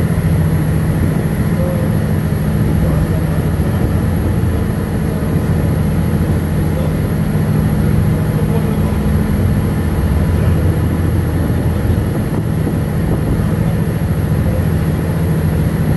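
Fishing trawler's inboard diesel engine running steadily, a constant low drone heard from inside the wheelhouse.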